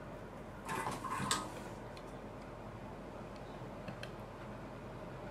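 A short clatter of small metal tools and parts being handled on a wooden workbench about a second in, followed by a few faint ticks over a low room hum.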